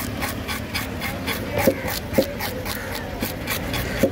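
Wooden fish scaler scraping the scales off a red grouper in quick rasping strokes, about five a second, with a few duller knocks against the fish and the block.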